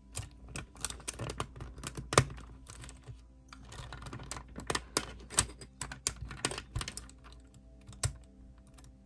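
Clear plastic crystal-puzzle pieces clicking and tapping against each other as fingers press and seat them on the model. An irregular run of small sharp clicks, thinning out near the end.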